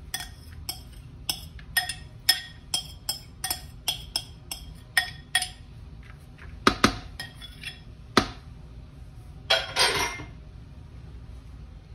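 A spoon clinking repeatedly against a bowl, about three to four light taps a second, then a few louder knocks and a short scraping sound near the end.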